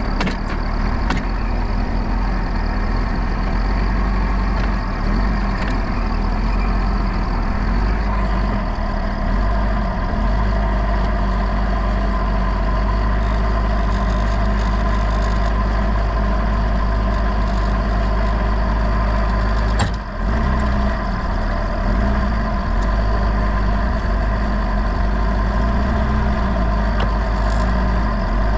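Forklift engine running steadily while the forklift is driven, with one short dip in loudness about two-thirds of the way through.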